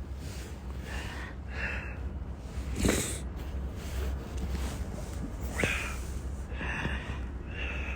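A sick man breathing heavily and sniffling through a congested nose, short breaths about once a second, with a louder sniff about three seconds in and another near six seconds.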